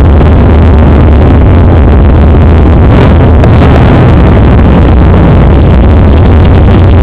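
Drag car's engine running loud just after a burnout, a dense, steady noise heavy in the low end that overloads the microphone throughout.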